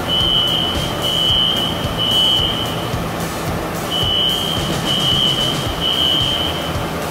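Fire alarm sounder beeping a high, steady tone in groups of three with about a second's pause between groups, the temporal-three evacuation pattern that signals a fire alarm in the building.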